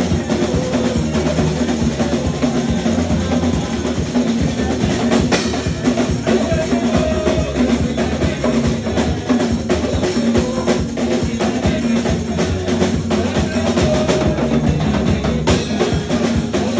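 Band music with a drum kit, its kick and snare hits over sustained low notes.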